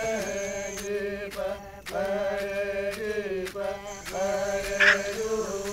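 Chanting voice holding long notes over a steady low drone, in phrases that break off about two seconds in and again near four seconds. A short, sharp sound near the end is the loudest moment.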